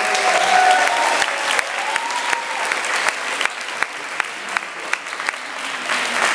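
Audience applauding, with a voice or two calling out over the clapping in the first couple of seconds. The clapping thins a little past the middle and swells again near the end.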